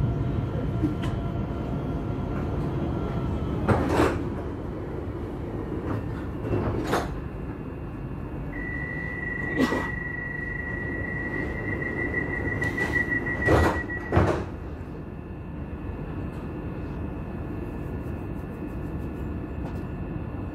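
Alstom Citadis tram standing at a stop, its equipment humming steadily. A few knocks, then a steady high door-warning tone for about six seconds that ends as the doors shut with two thumps.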